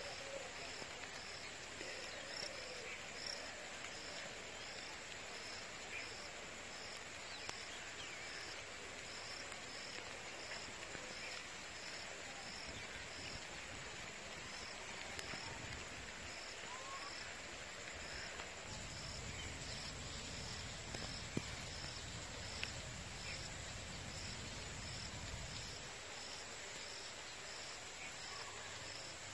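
Field ambience dominated by an insect chirping steadily, a short high chirp repeating about three times every two seconds over a faint hiss. A low rumble joins for several seconds past the middle.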